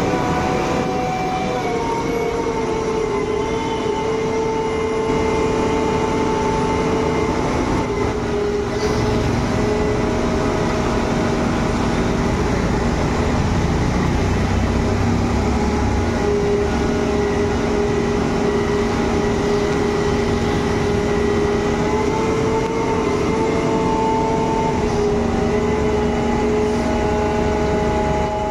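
Sany SYG5230THB 370C-8 concrete boom pump's engine and hydraulics running steadily as the boom unfolds: a continuous hum with whining tones that shift slightly in pitch a few times as the hydraulics take load.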